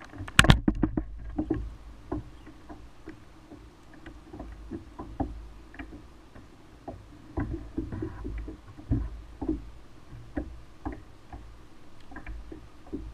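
Knocks and taps of gear being handled on a fishing kayak, with a quick cluster of sharp clicks about half a second in and scattered knocks after.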